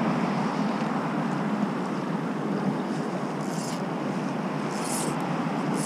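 River water rushing steadily, with two brief high hisses in the second half.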